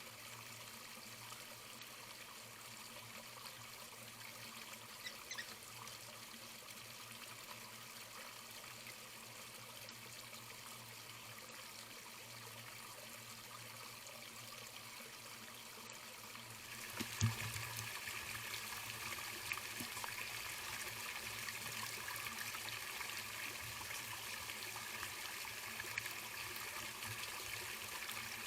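Steady trickle of running water. Partway through, a short knock comes and the water grows louder.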